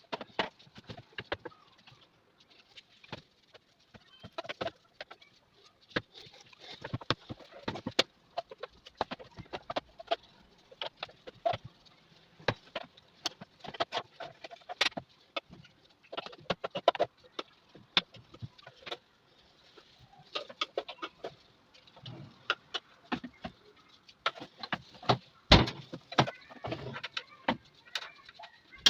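Irregular clicks, taps and knocks of a sewing machine's parts and tools being handled during servicing.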